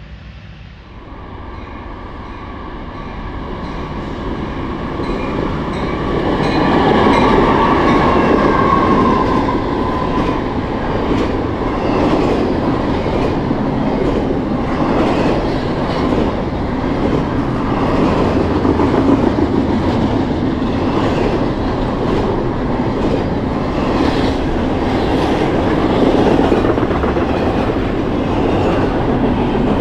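Freight train passing at speed: the diesel locomotives approach and go by, louder over the first six seconds, with a steady tone that drops in pitch as they pass. Then double-stack intermodal container cars rumble past with continual wheel clicks over the rail joints.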